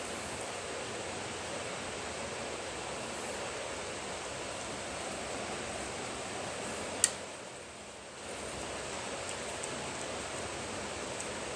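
Steady hiss of background noise, with one sharp click about seven seconds in, after which the hiss drops for about a second before returning.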